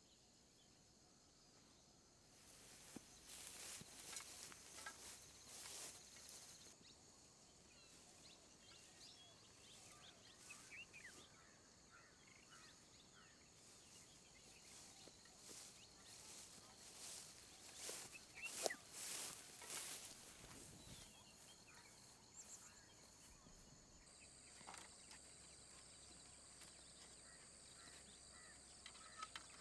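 Faint rural outdoor ambience: scattered bird calls over a steady high insect buzz, with a few brief rustling noises, the loudest about two-thirds of the way through. The background changes abruptly a few times.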